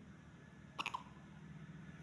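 A premature newborn baby's hiccup: one short hic about a second in, over a faint steady low hum.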